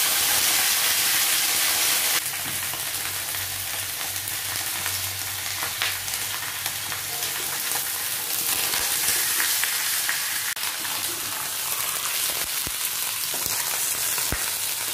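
Pieces of a large fish head frying in a little oil in a stainless steel wok, a steady sizzling hiss with scattered pops.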